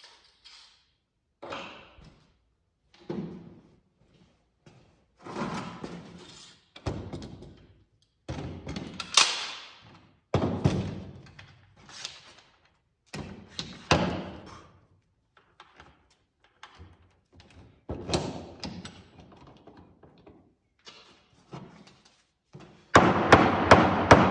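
Hammer blows on the lumber of a wooden floor truss: separate knocks and thuds every second or two, with a louder quick run of blows near the end. Each one rings on with a long echo off the corrugated-steel arch building.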